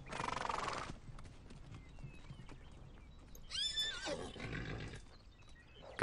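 Mustangs whinnying: one call in the first second, and a second, higher-pitched whinny about three and a half seconds in that drops in pitch at its end.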